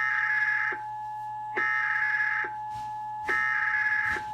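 Emergency Alert System SAME header: three identical bursts of buzzing digital data tones, each under a second long and about a second apart, with a steady two-note tone held underneath throughout.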